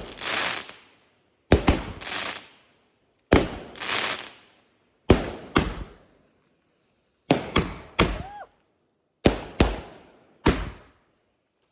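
Fireworks going off in a rapid string of sharp bangs, every one to two seconds, many in pairs about half a second apart, each with a crackling tail. A short whistling tone rises and falls about eight seconds in.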